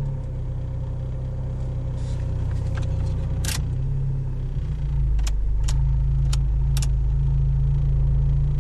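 Off-road 4x4 engine running steadily, with a deeper, slightly louder rumble from about five seconds in. A handful of short sharp clicks or knocks sound over it in the middle.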